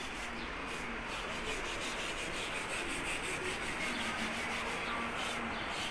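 A hand scraper rubbing over a balcony ledge in steady, repeated strokes, taking off the old surface to prepare it for painting.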